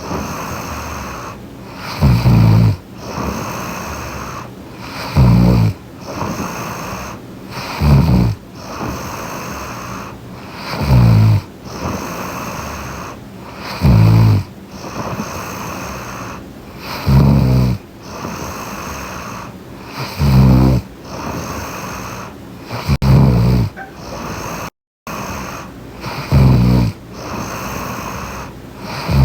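A young woman snoring in her sleep close to the microphone: a loud low snore of about half a second, repeating evenly about every three seconds, with a fainter steady hiss between. The sound drops out for a moment about 25 seconds in.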